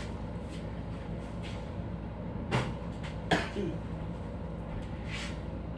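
Steady low hum, with two short sharp knocks less than a second apart near the middle.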